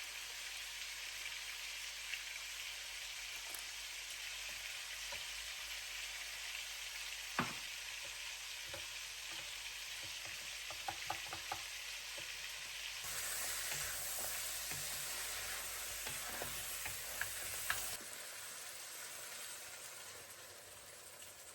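Food sizzling and frying in a pan, a steady hiss with a sharp knock about seven seconds in and a quick run of light clicks a few seconds later. The sizzle turns louder and brighter for about five seconds past the middle, then drops back quieter.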